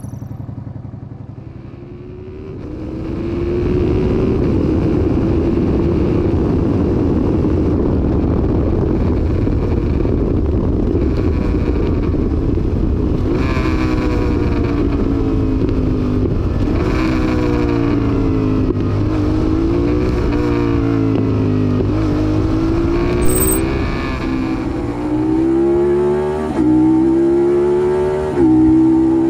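Onboard recording of a Suzuki SV650's V-twin engine under way, captured by a GoPro's built-in microphone: a dense rush of wind noise over the engine. From about the middle the engine pitch falls and rises again and again with throttle and gear changes.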